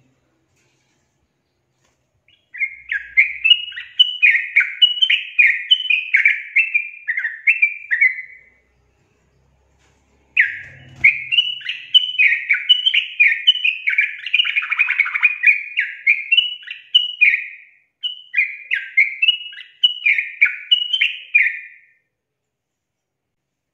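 Yellow-vented bulbul singing: fast runs of warbling notes that rise and fall in pitch, in three long phrases separated by brief pauses.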